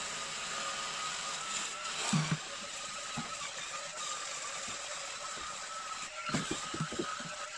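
Cordless electric cleaning brush running, its motor whining steadily while the spinning head scrubs a foamy stainless steel sink. A few short knocks come near the end.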